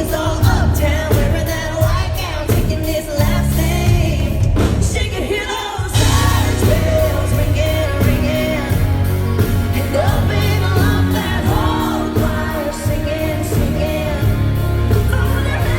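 A female lead vocalist sings a country-rock song with a live band, over a steady drum beat. About six seconds in the band drops out for a moment, then comes back in full.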